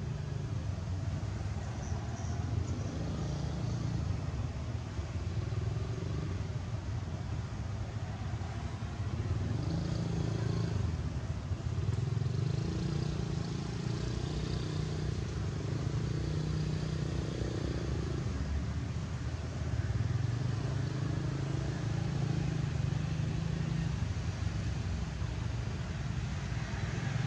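Steady low rumble of background motor traffic, swelling a little now and then as vehicles pass.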